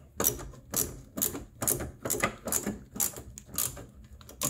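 Ratcheting wrench clicking in short back-and-forth strokes, about two to three a second, as the 5/16 bolt on the vapor canister's metal bracket is loosened.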